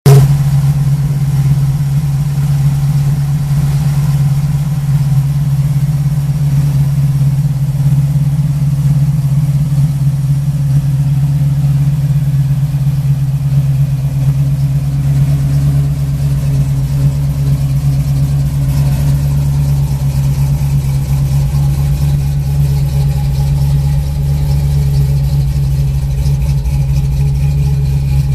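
Chevrolet small-block V8 of a 1981 Camaro Z28, rebuilt with a Crane 3/4 race cam, idling steadily.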